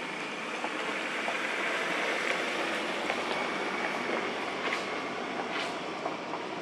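Steady outdoor background noise with an even, high-pitched buzz running through it, and two short rising sounds about three-quarters of the way in.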